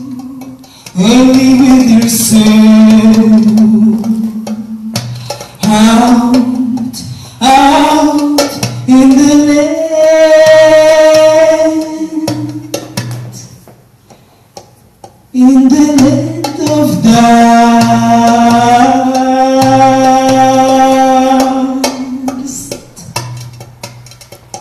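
A woman singing into a handheld microphone, in phrases with long held notes and a short pause about two-thirds of the way through.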